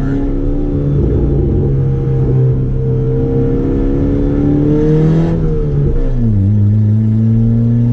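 Car engine heard from inside the cabin while driving, its revs climbing slowly, then dropping sharply about six seconds in and holding steady.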